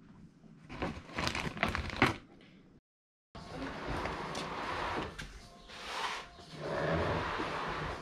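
Household handling noise: a quick run of knocks and clicks, a sudden cut to silence, then several seconds of rustling and bumping as a fabric sofa's back cushions are pulled and shifted.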